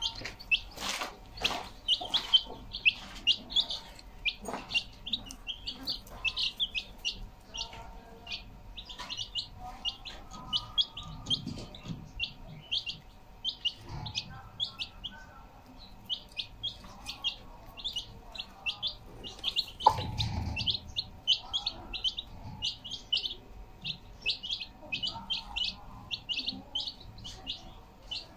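Young domestic chicks peeping: a dense run of short, high peeps, several a second. A single louder knock sounds about twenty seconds in.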